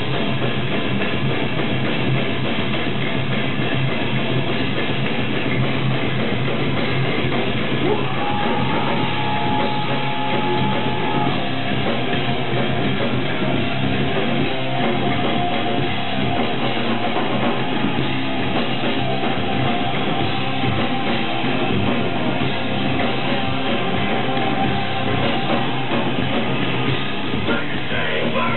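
Live heavy metal band playing an instrumental passage with distorted electric guitars and a drum kit, loud and dense throughout. About eight seconds in, a long held note comes in over the riffing and carries on at a slightly lower pitch.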